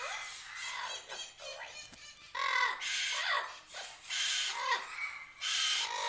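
Sulphur-crested cockatoos calling: softer gliding chatter over the first two seconds, then three loud, harsh screeches, the first lasting about a second.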